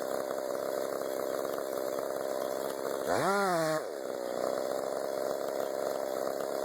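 Chainsaw running steadily, its pitch rising and falling once briefly about three seconds in as it is revved.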